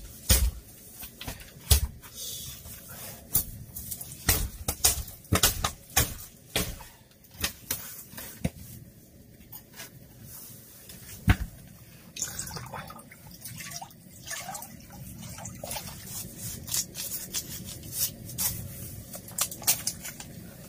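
Water poured from a plastic bottle into a wok, with repeated sharp clicks and knocks from the bottle being handled. After about twelve seconds the knocks give way to quieter rustling.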